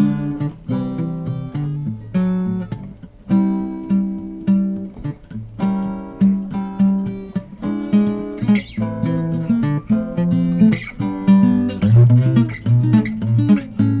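Instrumental acoustic guitar music: plucked and strummed chords with many quick note attacks.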